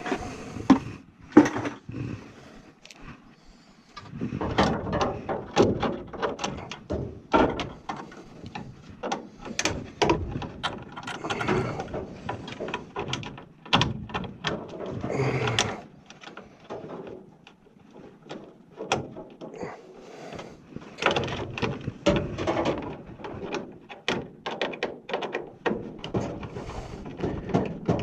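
Irregular knocks, clicks and clatter of hand work on small hardware, with stretches of scraping and rattling.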